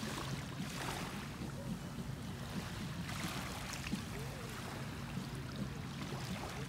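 Steady low engine hum, even throughout, over a faint wash of wind and water noise.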